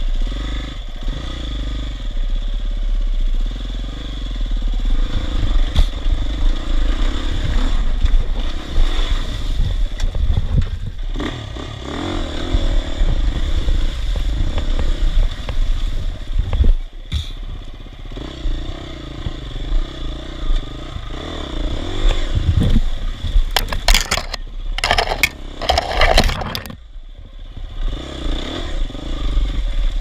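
Dirt bike engine running at low speed through a rocky creek crossing, its note rising and falling as the rider works the throttle, with water splashing and rocks clattering under the tyres.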